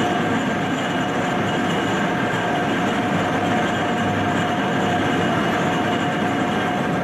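Train running: a steady rail rumble with faint steady whining tones over it, unchanged throughout.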